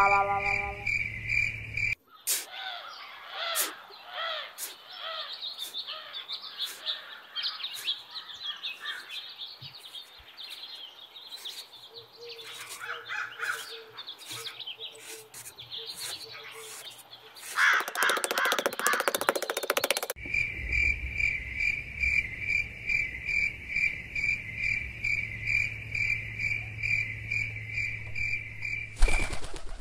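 Birds chirping and twittering, preceded by a short musical tone that stops about two seconds in. A brief burst of noise follows, then a steady high chirp pulsing about three times a second.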